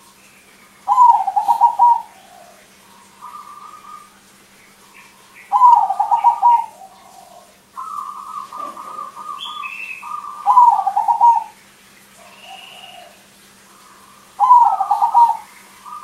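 Crossbred zebra dove (perkutut) cooing loudly: four rolling, rapidly pulsed coo phrases about four to five seconds apart, each about a second long, with softer coos between them.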